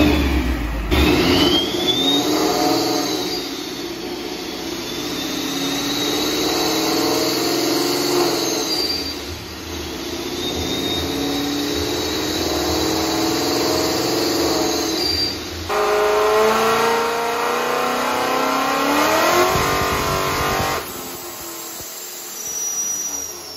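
Supercharged Ford Mustang V8 making a full-throttle pull on a chassis dyno: the engine revs climb, drop briefly at shifts of its manual gearbox about 9 and 16 seconds in, and climb again, with a high supercharger whine rising alongside. Near the end the throttle closes and the revs fall away.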